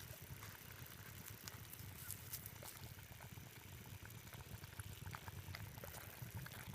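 Continuous low gurgling and bubbling from a small hole in the ground, with faint scattered clicks.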